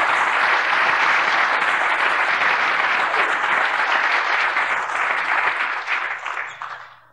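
Convention audience applauding steadily, dying away near the end.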